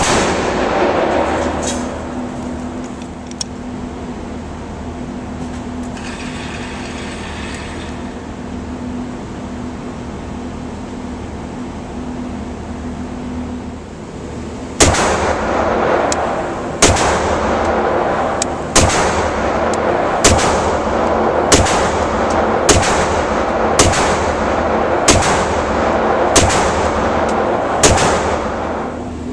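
Pistol gunfire in an indoor range, each shot echoing off the walls: a single shot at the start, then a steady hum for about twelve seconds, then about ten shots spaced one to two seconds apart.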